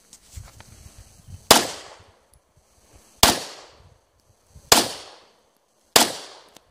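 Four pistol shots from a semi-automatic handgun, fired one at a time about a second and a half apart, each a sharp crack with a short echoing tail.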